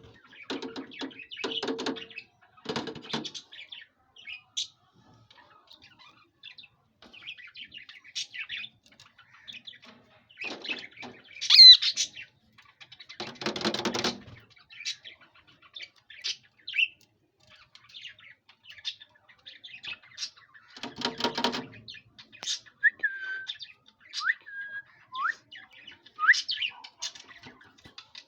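Pet talking parrot calling: scattered short chirps, whistles and squawks, with a few brief speech-like stretches, and one sharp loud squawk near the middle.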